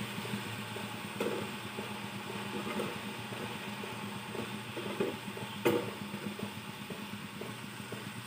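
Slotted metal spatula stirring chicken in a frying pan, clinking and scraping against the pan several times, sharpest about a second in and again near the middle, over a steady low hum.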